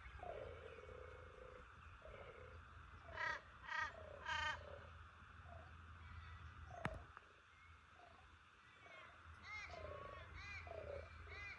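Wild animal calls: three loud, harsh calls about half a second apart a few seconds in, then a run of short, quick chirps repeating about twice a second near the end. A single sharp click falls near the middle.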